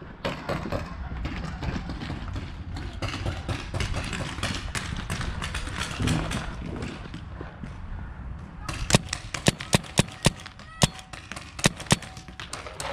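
Paintball game: a dense patter of small clicks and pops, then, from about nine seconds in, roughly ten sharp, loud pops close by as a paintball marker is fired in quick, uneven succession.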